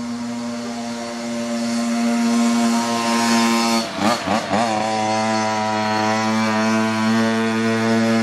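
An engine drones at a steady pitch, with its pitch wavering down and back up for about a second around four seconds in.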